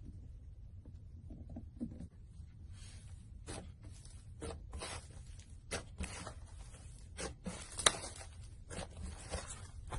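Slime being worked by hand, making irregular sticky crackles and pops that begin about three seconds in, with one sharp click just before the last two seconds.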